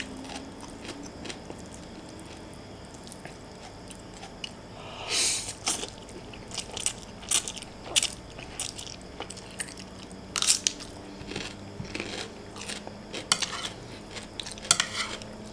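Close-up eating sounds of a person chewing mouthfuls of fried instant noodles, with scattered small clicks and a couple of louder slurps about five and ten seconds in.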